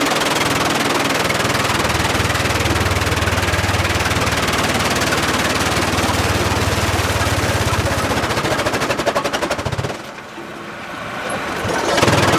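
Sawmill machinery running steadily with a low hum and a rough, noisy wash. Late on it turns into a fast rattle, then drops away abruptly about ten seconds in and starts up again just before the end.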